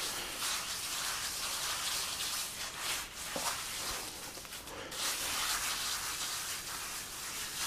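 Sponge float scrubbing over a fresh cement parge coat, knocking down the rough high spots to smooth the finish. It makes a steady wet rubbing hiss that eases off a little in the middle and picks up again about five seconds in.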